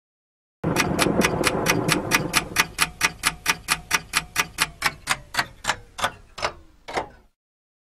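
Even, rapid mechanical ticking, about four ticks a second, over a low hum; toward the end the ticks slow and a tone slides down in pitch, then it all cuts off suddenly.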